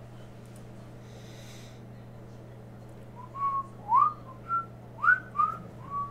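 A person whistling a short tune of about seven quick notes, some sliding upward, starting about three seconds in, over a steady low hum.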